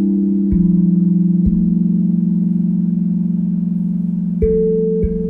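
Steel tongue drum music: slow single struck notes that ring on and overlap, with a longer gap before two quicker notes near the end.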